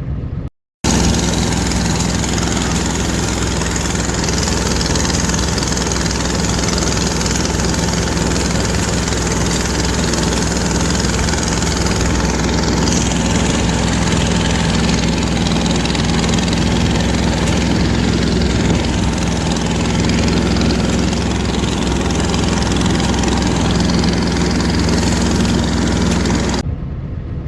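Diesel engine of an old Ockelbo 8000 tracked snowmobile running at a steady pace, with a constant hiss over it.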